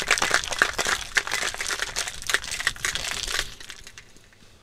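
Two half-size ice cubes rattling and knocking inside a cocktail shaker shaken fast to chill and froth a coffee cocktail. The shaking stops about three and a half seconds in.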